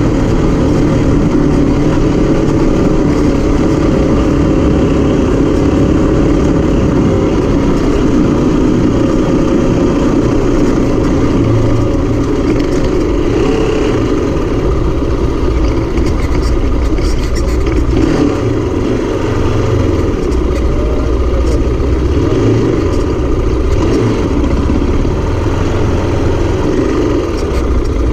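Zongshen RX3's 250 cc single-cylinder engine running steadily while the motorcycle rides along a dirt track.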